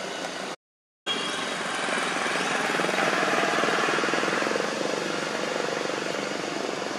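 A brief dropout to silence about half a second in, then a loud, steady engine drone with a fast flutter, swelling a little around the middle.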